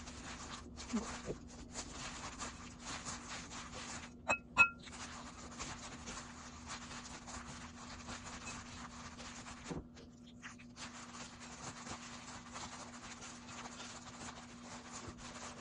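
Soft, continuous crinkling and rustling of a thin plastic glove as the hand squeezes and works crumbly glutinous rice flour (shiratamako) and water in a glass bowl. Two sharp clicks come about four and a half seconds in, over a faint steady hum.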